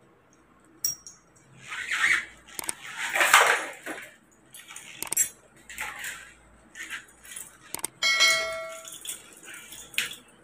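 Pieces of a broken washing-machine drum bearing and metal parts being handled: scattered rustles and clinks. About eight seconds in there is a bell-like ding with a ringing tone.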